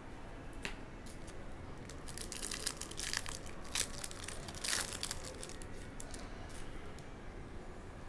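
A trading card pack's wrapper being torn open and crinkled in the hands, with sharp crackles bunched between about two and five seconds in.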